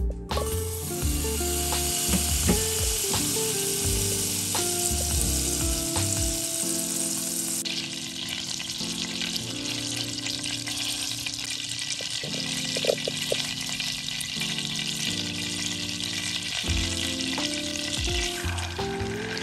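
Butter sizzling in a hot stainless steel saucepan: a steady hiss that starts suddenly as the butter goes in, turning to a crackly bubbling sizzle about eight seconds in as the butter melts and foams.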